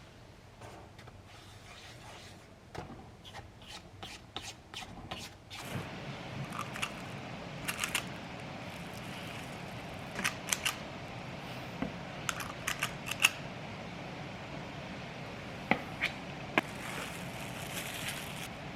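Small clicks, taps and scrapes of kitchen utensils and dishes being handled. A steady low hum comes in about six seconds in.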